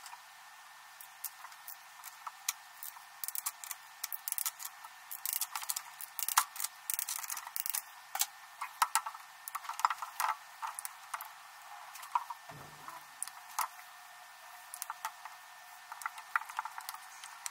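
Irregular clicks and light rattles of spark plug wires and their boots being handled and pushed back onto the plugs of a Datsun L-series engine, with one dull thump about three quarters of the way through.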